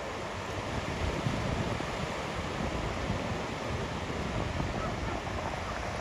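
Small ocean waves breaking, a steady rush of surf, with wind buffeting the microphone.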